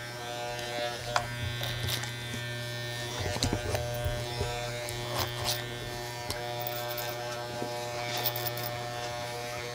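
Electric hair clippers buzzing steadily as they cut hair at the back of the neck and head, with a few brief ticks along the way.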